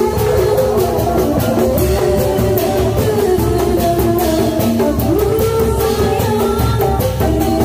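Live Sundanese procession music played loud through a portable speaker stack: kendang drum and electric guitars, with a wavering melody line over quick, steady percussion strikes.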